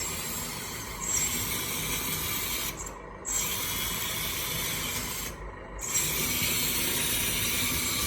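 Lesu 850K radio-controlled hydraulic bulldozer driving: drive motors whirring and the tracks rattling with a rasping clatter. It stops briefly twice, about three seconds and five and a half seconds in.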